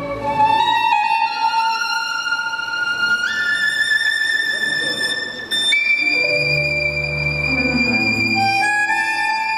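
Argentine tango music led by a violin holding long high notes that climb in steps, with the low accompaniment dropping away and coming back in about six seconds in.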